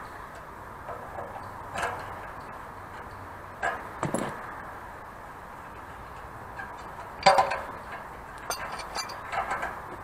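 Scattered metallic clinks and knocks of a wrench working on the pipe union fittings at the bottom of a water tank, the loudest about seven seconds in.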